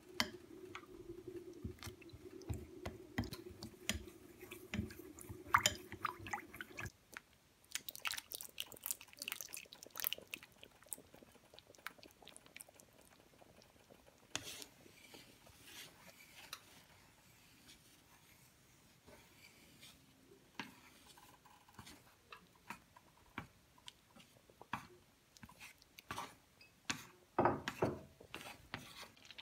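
Chopsticks tapping and clicking against a ceramic bowl while stirring a starch-and-water slurry, over a steady low hum that stops about seven seconds in. After that, chopsticks stir a thick simmering sweet potato and pumpkin dessert soup in a pot, with wet, sticky stirring sounds and scattered clicks.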